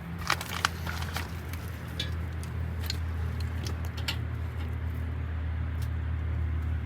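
A steady low machine hum with scattered light metallic clicks and clinks as a cylinder head is lowered on a chain onto the engine block; two sharper clicks come in the first second.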